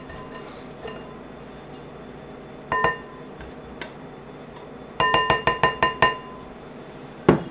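Wooden spoon striking the side of a green glass mixing bowl while stirring a thick, chunky mixture, making ringing clinks. There is a single clink near three seconds in, then a quick run of about eight clinks around the five-second mark, and a duller knock near the end.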